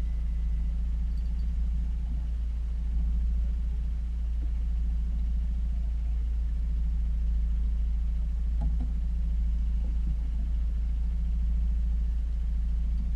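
Small outboard motor running steadily: a low steady rumble with a hum. A few faint knocks come about two-thirds of the way through.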